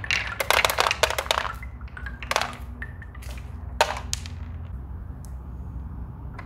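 Wooden balls knocking and clattering as they roll down a wooden slope and drop into the plastic bed of a toy pickup truck among other balls. A quick run of knocks in the first second and a half, then a few single knocks, fading out after about four seconds.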